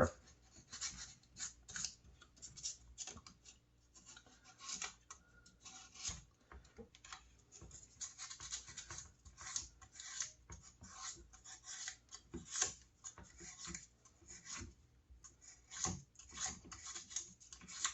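1200-grit sandpaper rubbed by hand on the commutator of a Skil 1825 router's brushed motor, heard as a faint run of short, irregular scratching strokes. It is cleaning corrosion and carbon buildup off the surface where the brushes make contact.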